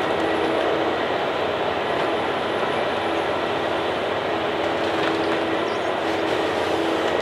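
Heavy tree-cutting machine running steadily, a constant engine drone with a faint steady whine over it.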